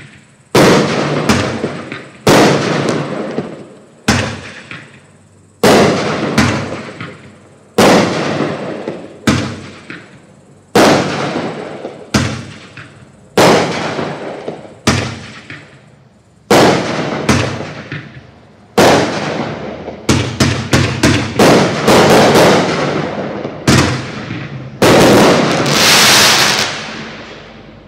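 Black Cat Hot Mama 15-shot consumer firework cake firing its shots one after another: loud, sudden bangs, each trailing off over a second or two. The shots come every couple of seconds at first, then crowd together in quick overlapping volleys after about twenty seconds, ending in a longer sustained burst.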